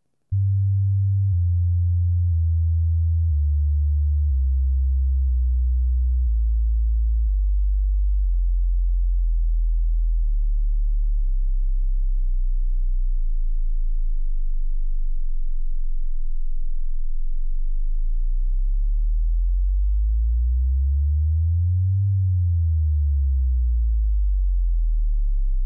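Deep, nearly pure sine-like bass tone at a steady level, stepping down in pitch over the first dozen seconds. Later it glides up and back down again near the end.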